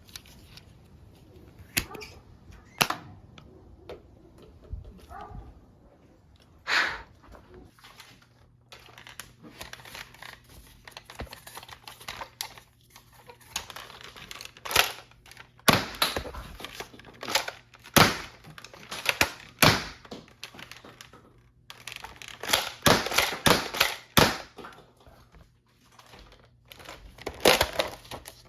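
Plastic clicks and snaps of a Nerf blaster being handled and reloaded. The sharp clacks come irregularly, a few at first, then more often, with a quick run of them near the end.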